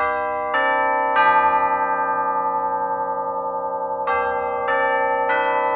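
Tuned chime bells playing a slow melody: a few notes struck about half a second apart, each ringing on and overlapping the next, then a pause of about three seconds while they sustain, then another phrase of notes.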